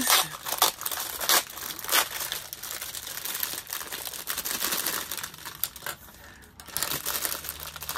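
Clear plastic cellophane bag crinkling in the hands as it is handled and opened and its contents tipped out. The crackling is irregular, with a short lull just after six seconds.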